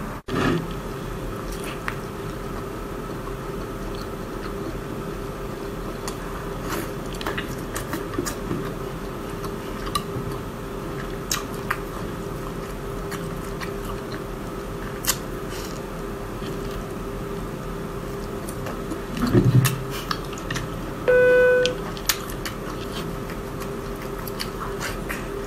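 A person chewing and biting braised squid up close, with scattered small wet mouth clicks over a steady background hum. A low bump comes shortly before a short electronic beep near the end.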